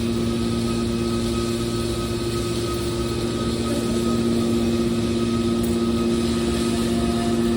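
Hydraulic metal press baler running: the steady hum of its motor and hydraulic pump, with a constant tone throughout.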